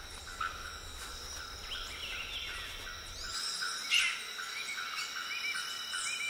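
Tropical rainforest ambience: insects trilling and chirping in a steady, pulsing high chorus, with a few short animal calls over it, one rising briefly about four seconds in.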